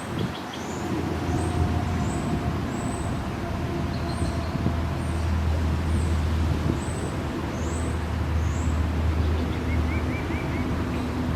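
Low, steady rumble of road traffic that swells through the middle, with thin high downward chirps repeating about every half second above it.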